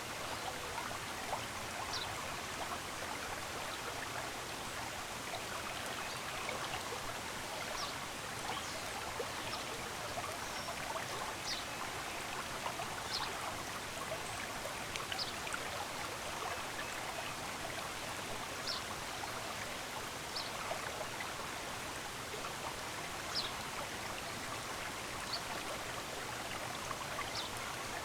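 A stream running steadily over stones, with short high bird chirps every second or two.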